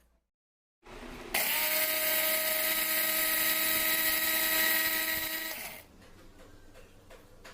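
Electric spice grinder running steadily, grinding whole spices into masala powder; it starts suddenly about a second and a half in, runs a steady high whine for about four seconds, then winds down and stops.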